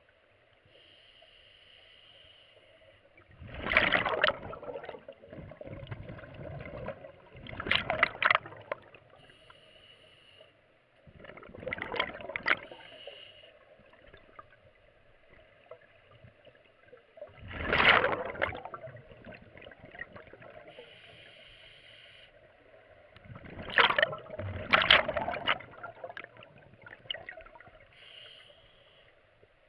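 Scuba diver breathing through a regulator underwater: a soft hiss on each inhale, then a loud gush of exhaled bubbles, five times about every four to six seconds.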